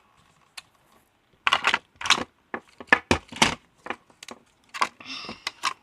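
Plastic blocks of a Slide Twist handheld electronic game being twisted and slid: an irregular run of sharp clicks and clacks, denser in the middle.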